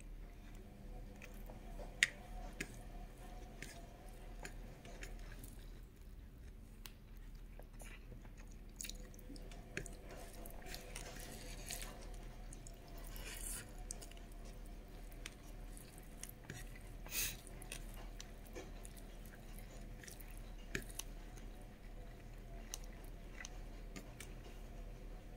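A person chewing mouthfuls of rice and pork curry close to the microphone, with many small wet mouth clicks and a few louder ones. The soft squish of rice being mixed by hand on the plate runs under it.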